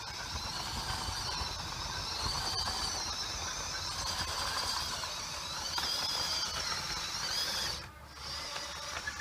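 Small electric gear motors of a scratch-built RC track loader running with a high whine that wavers up and down in pitch as the load changes. It cuts out near the end, runs again briefly, then stops.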